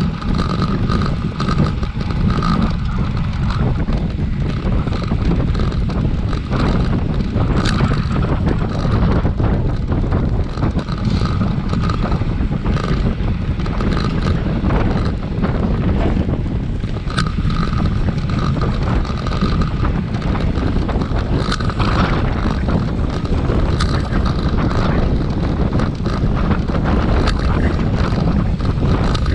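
Wind buffeting the microphone: a steady, loud low rumble, with a faint tone that comes and goes and scattered light clicks above it.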